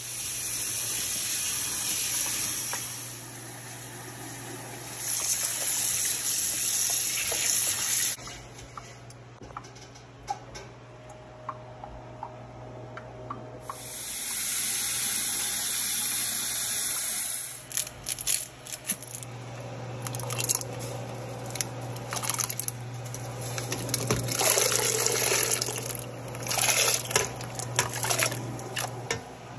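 Tap water running into a pot of hominy in three spells of a few seconds each, then from about two thirds of the way in hands swishing and rubbing the kernels in the water with irregular splashes as they are rinsed. A steady low hum runs underneath.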